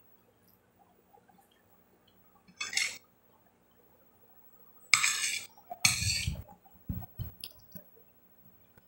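Close-up eating sounds: a metal spoon clinking and scraping in a glass bowl and the mouth noises of chewing boiled chicken. A short burst comes about two and a half seconds in and two louder ones around five and six seconds, followed by a few small clicks.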